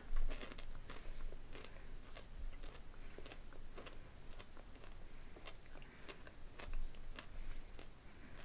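A person chewing a candy-shelled M&M with the mouth close to the microphone, a run of small irregular crunches and crackles.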